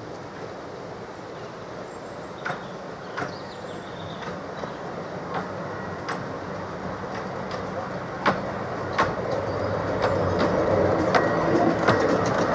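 Small narrow-gauge steam train approaching and growing steadily louder, its wheels clicking over rail joints in pairs.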